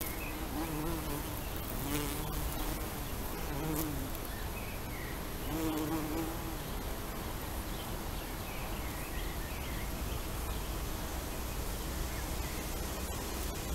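Bumblebees buzzing in flight around flowers, a low hum that comes and goes in several short passes, loudest about six seconds in.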